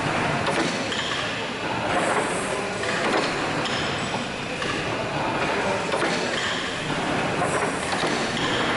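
Hathorn Davey steam pumping engine running: a steady mechanical clatter from its moving rods and valve gear, with repeated clicks and knocks.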